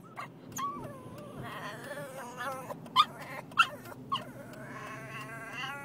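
A dog whining in long wavering cries that rise and fall, broken by three short sharp yelps in the middle and followed by a drawn-out whine near the end: the distressed crying of an upset dog.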